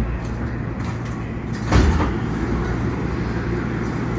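Steady low hum inside a MARTA Hitachi CQ311 rapid-transit car standing at a station platform, with one loud, sharp thump a little under two seconds in.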